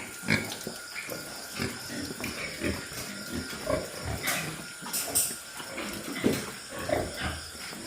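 Several pigs in a farm shed grunting, with many short calls overlapping at irregular intervals, a few louder ones, and a couple of higher cries near the middle.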